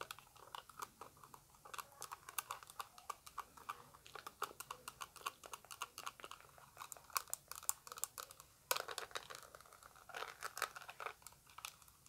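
Fast ASMR tapping of long fingernails on a translucent orange plastic eyeshadow palette case: a quick, irregular run of light plastic clicks, bunching into rapid flurries.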